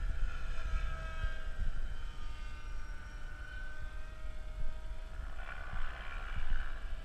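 KDS Agile 7.2 radio-controlled helicopter in flight, its rotor and motor making a steady whine that drifts up and down in pitch as it manoeuvres, swelling louder about five and a half seconds in.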